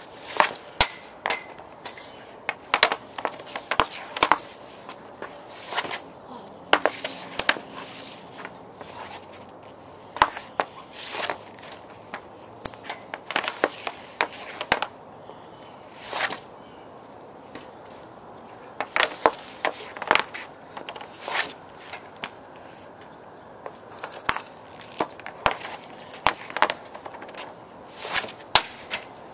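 Hockey stick and pucks on a plastic shooting pad: the blade scraping across the pad and sharp clacks as pucks are struck, many times over with short pauses between.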